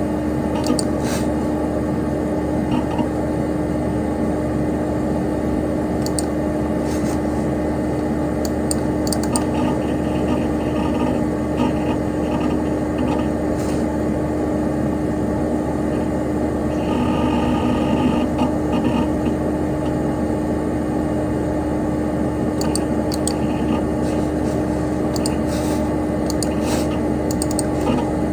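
Dell Dimension XPS P100c desktop computer running: a steady whir from its cooling fan with a constant hum, and scattered light clicks from the hard drive. A brief higher tone comes in about two-thirds of the way through.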